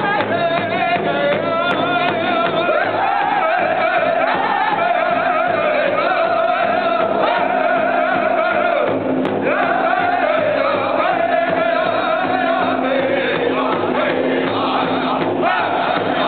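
A powwow drum group singing together in high-pitched voices while beating a large shared hand drum with padded sticks.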